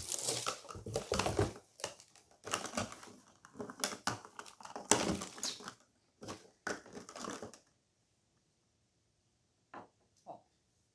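Plastic toy packaging crinkling and being crumpled in the hands, in irregular crackling bursts that stop about three-quarters of the way in. A few faint clicks near the end.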